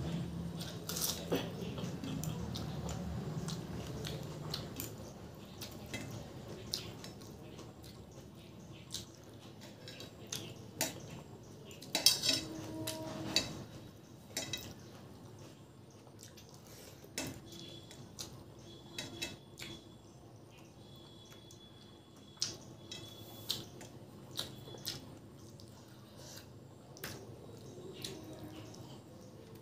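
Fingers mixing wet rice and dal on a stainless steel plate, with squelching, scraping and scattered sharp clinks against the metal, and chewing. The loudest clinks come about twelve seconds in.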